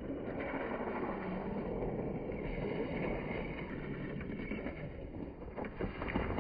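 Traxxas Ford Raptor 1/10-scale RC truck driving through snow: a steady rushing noise of motor and tyres, with some wind on the microphone.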